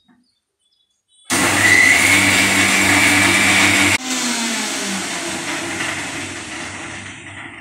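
Electric mixer grinder grinding roasted curry leaves, garlic and spices into a dry chutney. It starts abruptly about a second in and runs at full speed with a high whine for under three seconds. Then its level drops suddenly and it winds down slowly, its pitch falling, as the motor coasts to a stop.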